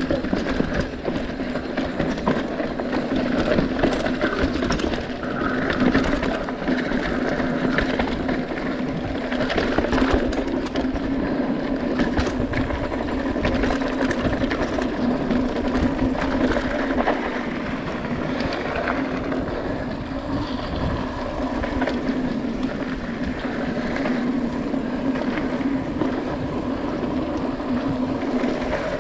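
Mountain bike rolling down a dirt trail: steady tyre and wind rumble with frequent rattles and knocks from the bike over rough ground.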